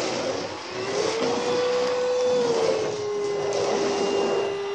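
Hoover Rhapsody cordless stick vacuum running with its electric brush head: a steady motor whine over the rush of suction air. The whine rises in pitch about a second in, steps down a little near the middle, then holds steady.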